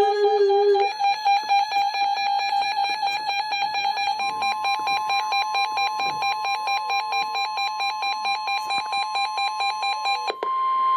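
Emergency alert tones on NOAA Weather Radio: a fast, steady run of sharp electronic beeps, joined about four seconds in by the steady 1050 Hz weather-radio warning alarm tone, which signals that an alert message is about to be read. The beeping stops shortly before the end while the long tone holds.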